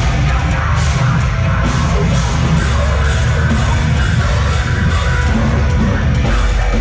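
Live heavy metal played very loud, with screamed vocals, heavy bass and drums, and a crowd yelling.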